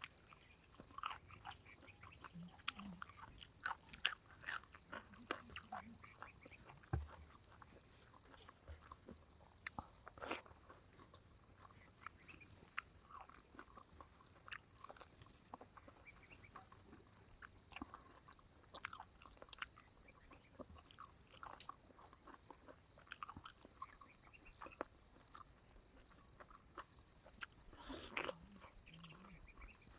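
Close-up chewing and mouth sounds of someone eating pork curry: irregular soft clicks, smacks and crunches, several to the second.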